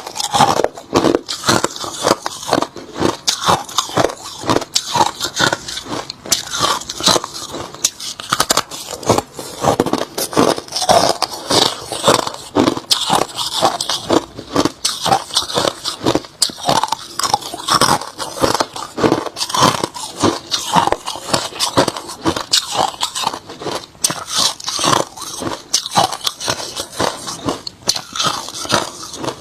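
A person biting and chewing hard crushed ice close to the microphone: a continuous run of sharp, irregular crunches and cracks.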